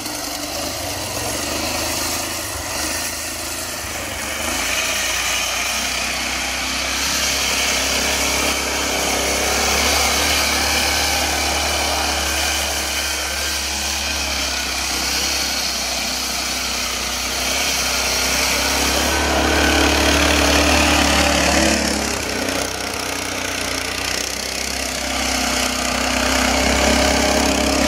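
Engine of a Sibir 2×2 all-wheel-drive all-terrain motorcycle running as it is ridden through deep snow, getting louder with throttle about twenty seconds in and again near the end.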